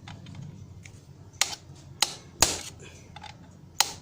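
Claw hammer driving a concrete nail against a seized bolt on a washing machine motor: four sharp metallic blows at uneven intervals, the third the loudest with a brief ring, knocking the bolt loose.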